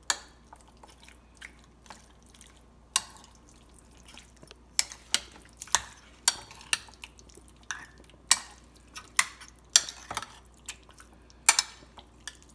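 Metal spoon clinking irregularly against a bowl while raw chicken drumettes are stirred through their marinade. The clinks are sparse at first and come louder and more often from about five seconds in.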